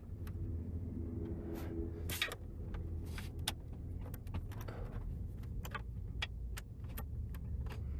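Scattered light clicks and taps of hands and tools working on plastic steering-column and dash trim, over a steady low hum.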